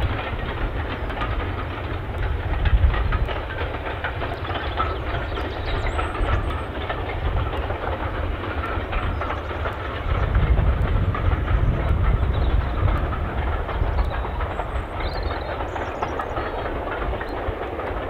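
Steam-hauled train running past at a distance, its carriage wheels clattering over the rail joints over a continuous low rumble.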